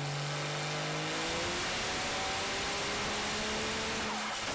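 Diesel pickup truck engine revving hard under load on a chassis dyno, its pitch climbing slowly, over a heavy rush of exhaust and turbo noise.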